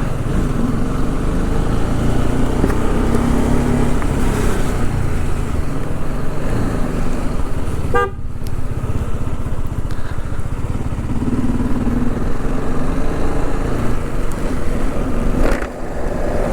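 TVS Apache RR310 motorcycle riding along with a steady engine and wind rumble. A short horn toot sounds about halfway through.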